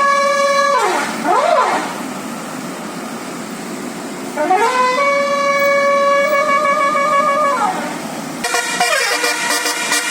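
Indonesian bus 'telolet basuri' musical horn. It holds a note, swoops down and back up, and drops out for about two seconds under background noise. It then glides up into a long held note that falls away, and near the end plays a quick run of tune notes.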